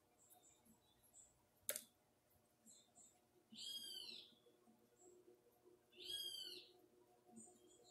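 A bird calling twice, a short arched high chirp repeated about two and a half seconds apart, with one sharp click a little before the first call.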